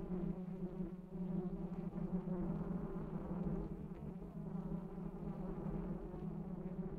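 Steady buzzing of a wasp swarm, holding one low pitch without a break.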